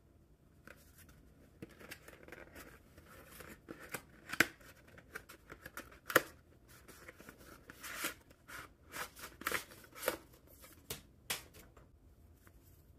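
Hands handling a Galaxy Z Fold 6 phone and its packaging: soft rustling broken by irregular sharp clicks and taps, the loudest about four and six seconds in.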